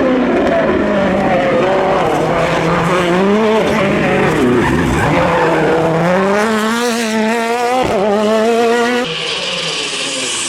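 A 2017 World Rally Car's turbocharged four-cylinder engine driven hard, with tyres skidding. The revs sag about four seconds in, then climb steadily for several seconds. Near the end the sound cuts abruptly to another, slightly quieter passage of rally-car engine noise.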